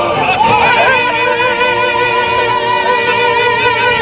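Operatic singing: a voice holds one long note with a wide vibrato, beginning about half a second in.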